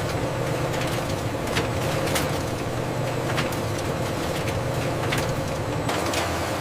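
Factory processing machinery running with a steady hum, with irregular sharp clicks and clatter a couple of times a second.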